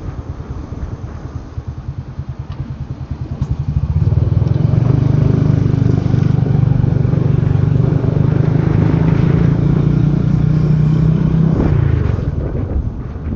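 Motorbike taxi's engine heard from the pillion seat. It runs slowly with an uneven, pulsing note at first, picks up about four seconds in to run louder and steadily under throttle, then eases off near the end.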